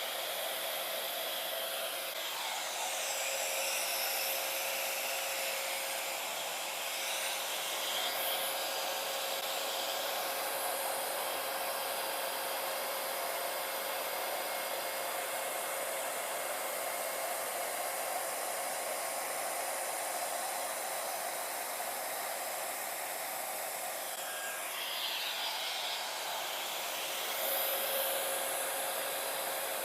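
Hair dryer running steadily, blowing wet acrylic paint across a canvas. It makes an even rush of air with a faint steady hum in it, and the tone of the rush shifts briefly a few times as the air stream changes.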